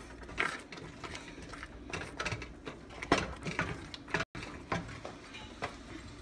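Wooden spatula stirring a thick mashed-vegetable curry in a stainless steel pan: irregular scrapes and light knocks against the pan.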